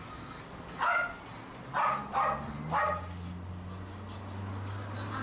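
A dog barking three times, about a second apart, over a steady low hum that grows louder near the middle.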